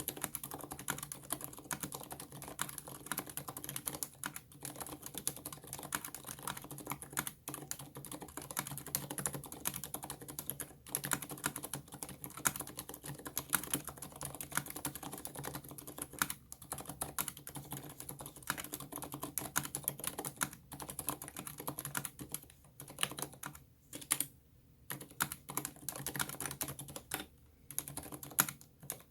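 Continuous fast typing on a mechanical keyboard with Aliaz 60g silent tactile switches and SA-profile ABS keycaps. The keystrokes come as a dense stream of clicks, broken by a couple of short pauses near the end.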